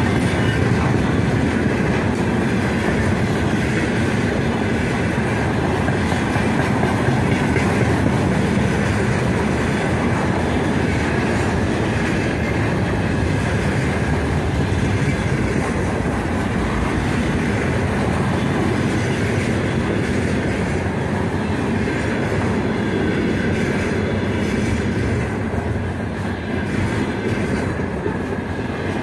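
Container flatcars of a long freight train rolling past close by: the wheels run on the rails in a steady, dense noise that eases slightly near the end.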